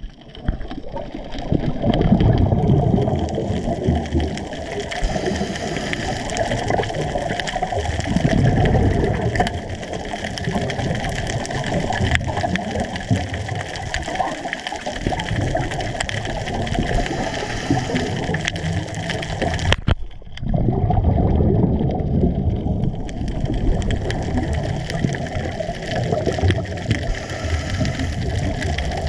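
Muffled underwater sound of scuba breathing: regulator exhaust bubbles gurgle and gush in surges every several seconds over a steady low rush of water against the camera housing.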